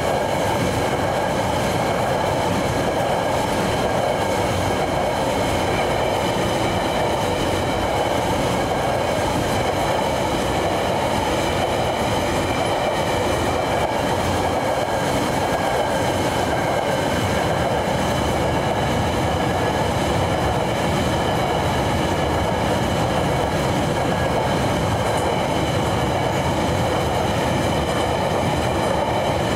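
Empty coal hopper wagons of a TasRail freight train rolling past at a steady speed: a continuous, even wheel-and-rail noise with a few steady high tones over it.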